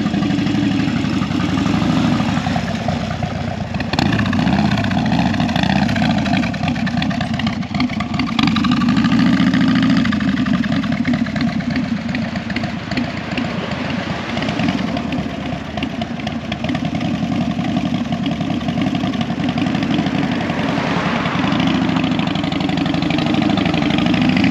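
Motorcycle engine running near idle and being revved, its pitch rising and falling several times in the first half.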